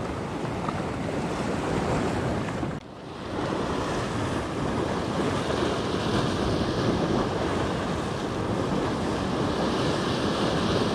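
Sea waves washing and wind buffeting the microphone: a steady rushing noise with a brief sharp dip about three seconds in.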